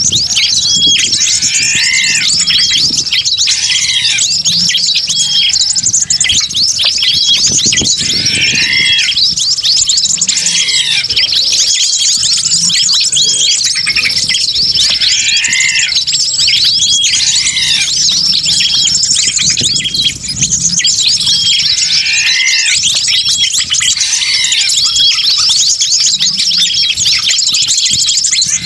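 Bird-lure recording of a noisy flock of small wild birds chirping and twittering nonstop, with a louder arched call repeating about every two seconds.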